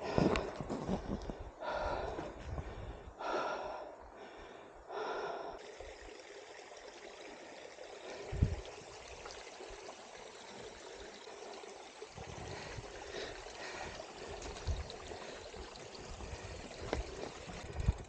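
A person breathing hard from exertion: several heavy breaths in the first five seconds, then a steady hiss with a single thump about eight seconds in.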